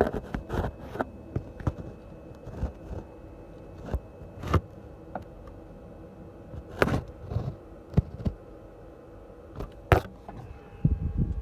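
Irregular metallic clicks and knocks of hand tools working on bolts in a car's engine bay, over a faint steady hum. The loudest knocks come about four and a half, seven and ten seconds in.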